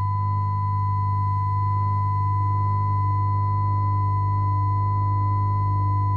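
Sustained drone from an electric guitar rig played through contact microphones and a Boss Metal Zone distortion pedal: a strong low hum with a steady high ringing tone above it. A faint middle tone joins about halfway through.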